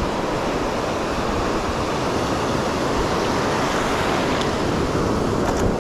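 Ocean surf washing up the beach: a steady rush of breaking waves and foam.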